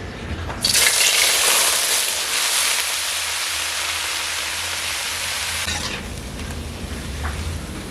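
Food sizzling in hot oil in a pan, a dense hiss that jumps up sharply just under a second in and eases off at about six seconds.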